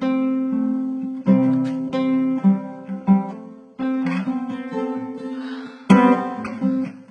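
Acoustic guitar strumming chords in an instrumental break, each chord struck and left to ring, with short pauses between groups of strokes.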